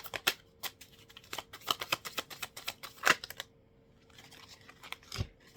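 A deck of tarot cards being shuffled: a rapid run of card clicks and snaps that stops after about three and a half seconds, followed by a single soft thump near the end.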